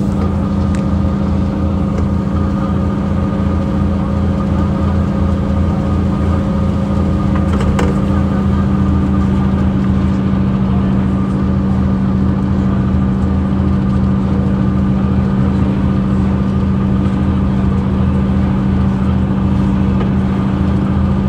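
Mercedes-Benz CapaCity articulated bus running at a steady pace: a low diesel drone from its OM 457 hLA engine with a steady whine on top from its ZF Ecomat 6 HP 602 C automatic gearbox, a rare, unusually noisy transmission for this bus.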